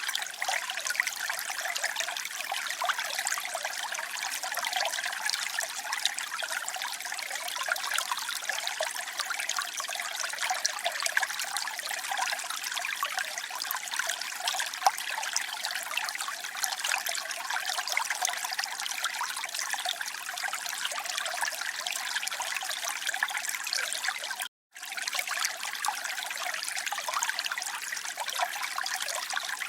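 Running water trickling and splashing steadily, a dense even patter of small splashes. About three-quarters of the way through it drops out for a split second, as at an edit, then resumes unchanged.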